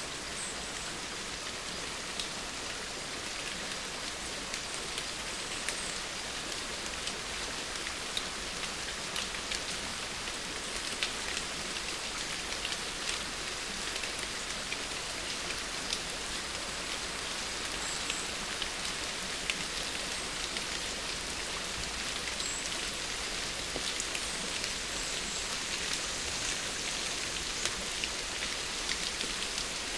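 Steady rain: an even hiss of falling rain with scattered sharper drop ticks throughout.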